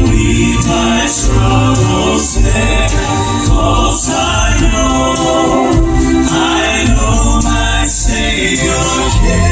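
Live southern gospel music: a male vocal quartet singing in harmony over a band with a strong bass line.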